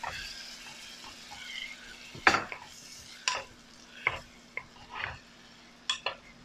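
Wooden spatula stirring kimchi frying in butter in a ceramic casserole dish, with a faint sizzle. There is a series of sharp knocks of the spatula and dishware against the dish, the loudest about two seconds in.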